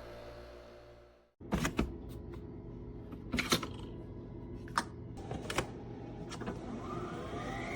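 Several sharp clicks and knocks from a Nespresso Vertuo pod coffee machine being handled. Near the end its electric motor starts up with a whine rising in pitch.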